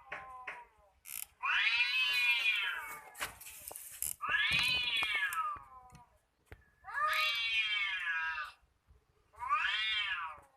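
Cat caterwauling: four long, drawn-out yowls, each rising and then falling in pitch, with short pauses between. These are the cries of cats squaring off for a fight.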